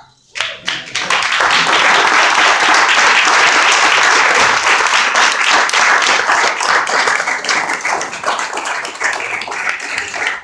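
A roomful of people applauding. It starts about half a second in, is fullest for the first several seconds, and thins out toward the end.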